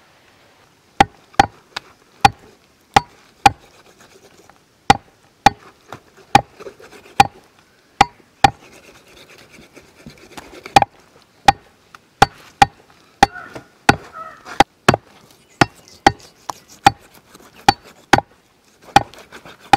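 A cleaver chopping goat meat on a wooden tree-stump block: repeated sharp chops, one to two a second at uneven spacing, starting about a second in.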